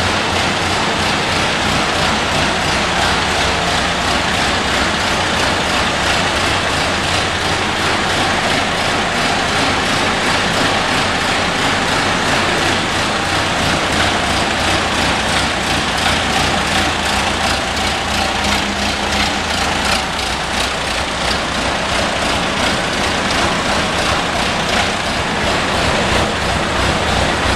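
1928 Chevrolet truck's four-cylinder engine idling steadily.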